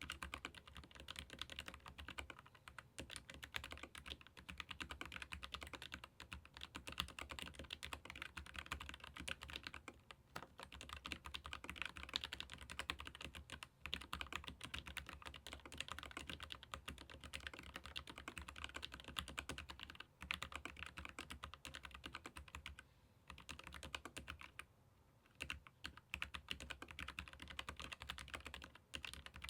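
Continuous fast typing on a Keychron K15 Pro Max low-profile mechanical keyboard with Gateron low-profile red linear switches: a dense stream of light key clacks, with a brief pause about three quarters of the way in.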